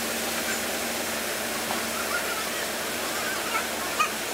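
Water gushing steadily through the upper gate paddles of a canal lock into the lock chamber, a constant rush. A single short knock near the end.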